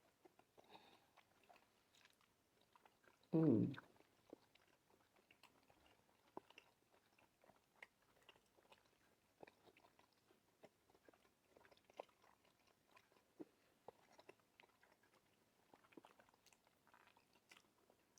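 Quiet chewing and eating sounds, with many small mouth clicks throughout. About three seconds in comes one short, loud vocal sound that falls steeply in pitch.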